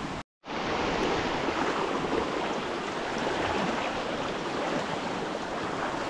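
River water rushing steadily over rocks, an even hiss of flowing water, after a brief cut-out just at the start.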